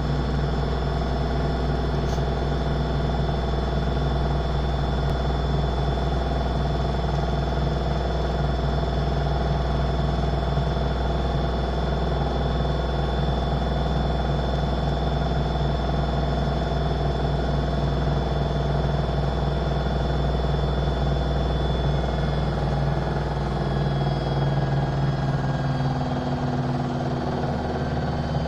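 Washing machine spinning: a steady drum-and-motor hum with several fixed tones and a strong deep drone. About 25 seconds in the deepest drone drops away and the tones shift slightly.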